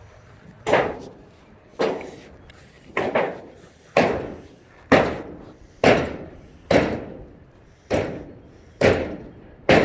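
Heavy striking blows, ten in a row at a steady pace of about one a second, each ringing out briefly after the hit.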